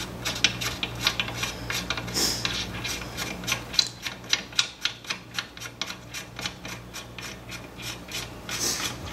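Front band adjuster screw of a 32RH (A904) three-speed automatic transmission being wound all the way out of the case with a wrench. It makes a rapid, steady run of clicks with metal rubbing, on a long thread.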